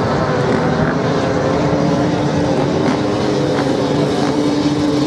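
Off-road motorcycles racing on a beach sand track: several engines running hard together, their notes overlapping, with one steady engine note holding under the others.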